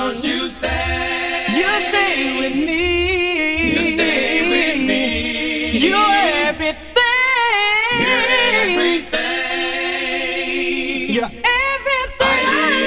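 Male R&B vocal group singing a cappella in layered harmony with wavering melismatic runs and no clear words, slowed down and pitched low in chopped-and-screwed style. The voices break off briefly a couple of times.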